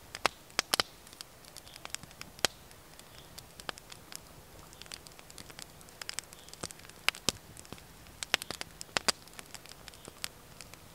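Wood fire crackling: irregular sharp snaps and pops of varying loudness, a few loud ones soon after the start and a cluster of them past the middle.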